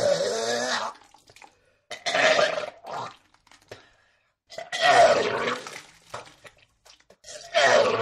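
A person vomiting: repeated retching heaves, with the voice straining through each one. There are about four bouts, each roughly a second long, with short pauses between them.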